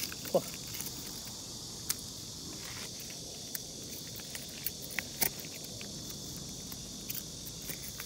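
A knife tapping and prying at a cluster of wild oysters on a rock: a handful of sharp, scattered clicks of metal on shell. A steady high hiss runs underneath.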